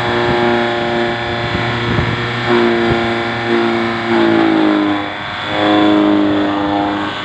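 Tractor running a PTO-driven straw and hay chopper as bundles of dry straw are fed in; the machine's pitch dips and recovers a few times as the load of straw comes on.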